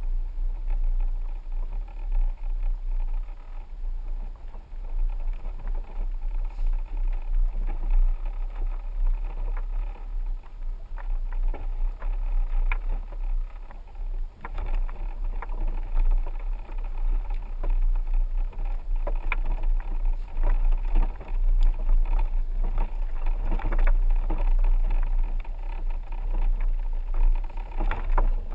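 A 4x4 truck driving slowly behind a herd of cattle: a steady low rumble with scattered knocks and rattles, which come more often in the second half.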